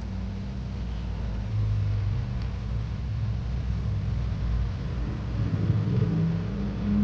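Potato fritters sizzling as they deep-fry in hot oil, over a louder steady low rumble that swells slightly partway through.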